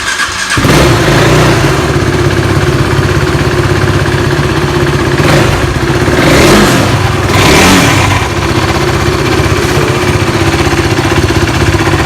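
KTM RC 390's single-cylinder engine running just after being started, blipped a few times between about five and eight seconds in. It is run to bring out the vibration noise of a visor that has come loose on its mounting Allen nuts.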